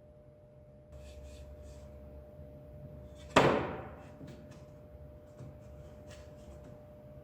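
A single sharp bang about three seconds in, ringing off over half a second, amid light clicking and clattering from things being handled, over a faint steady hum.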